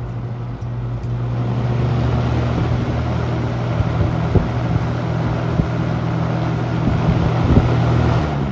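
Toastmaster box fan running: a steady motor hum with rushing air and a few light knocks, growing louder about a second in. Near the end it is switched off and begins to spin down.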